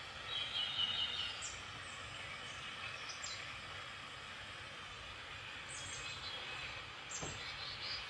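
Steady road and rain noise from a moving car, with birds chirping over it: a louder burst of song about half a second in, then a few brief high chirps.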